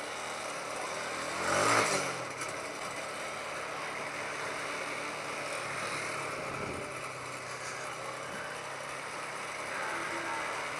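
Riding on a TVS Apache RTR 180 motorcycle, its single-cylinder engine humming under steady wind and road noise. A brief louder swell of engine noise comes about two seconds in.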